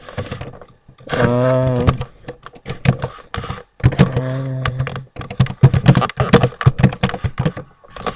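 Typing on a computer keyboard, with keys and clicks coming in irregular quick runs that are busiest and loudest in the second half. Two held low hums of about a second each come in the first half.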